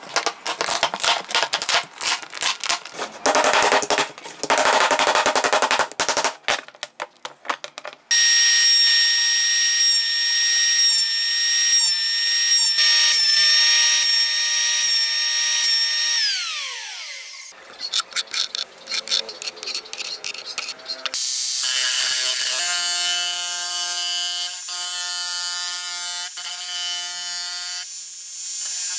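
Packing tape being torn off a cured epoxy resin casting, crackling in quick strokes for the first several seconds. Then an electric thickness planer runs with a steady high whine that falls in pitch as it spins down about 16 seconds in. After a few clicks, a jigsaw runs with a steady buzz from about 21 seconds in.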